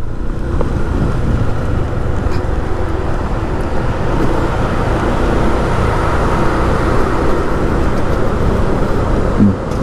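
Steady road traffic noise, a continuous rumble of passing vehicles with no single event standing out.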